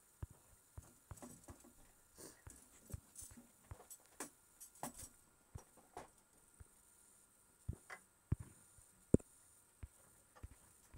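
Irregular light taps and clicks on a tablet touchscreen while painting in a drawing app, with three louder knocks about three-quarters of the way through.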